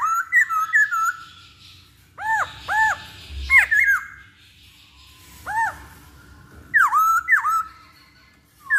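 Black-throated laughingthrush singing: short groups of loud whistled notes, each rising and falling in pitch, repeated every second or two with pauses between.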